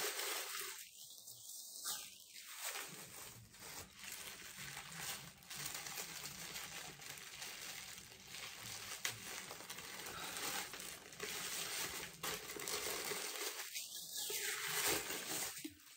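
Paper wrapping and packaging being handled and pulled apart, a continuous rustling and crinkling with many small crackles.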